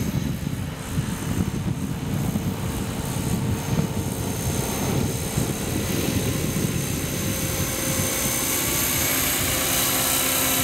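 Radio-controlled scale Bell LongRanger helicopter in flight: a steady rotor and engine drone, with a high whine that grows stronger and steadier in the second half as it passes close.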